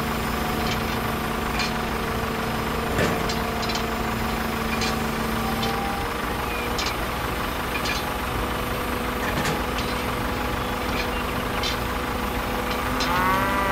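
Engine idling steadily, with scattered light clicks over it.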